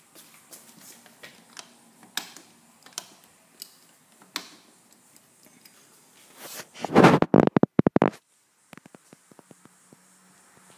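Light footsteps and small clicks. About seven seconds in comes a loud, choppy rubbing noise of about a second: a hand handling the phone over its microphone.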